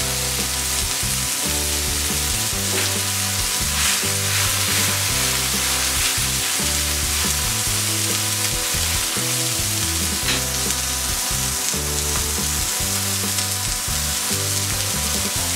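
Chopped beef patty frying in vegetable oil in a very hot nonstick pan: a steady, dense sizzle with a few louder spits and pops as the meat's juice spatters into the oil.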